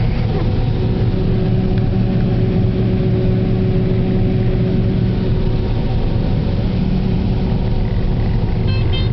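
Engine of a moving farm vehicle running steadily at an even pitch, with a steady drone and whine. A brief high tone comes in near the end.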